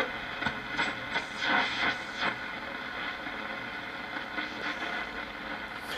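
Shortwave static hissing from a 1937 Philco 37-630 tube radio's speaker as its dial is tuned across the band, with a few faint brief sweeps of passing signals in the first couple of seconds. Not much is coming in: the band is dead.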